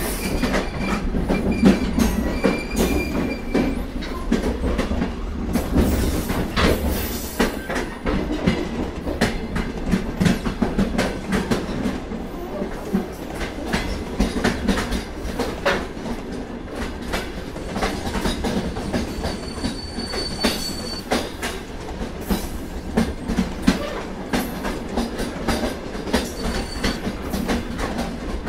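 Freight train cars rolling past on steel rails: a continuous low rumble with rapid clicking of wheels over the rail joints, and a couple of brief, faint high wheel squeals.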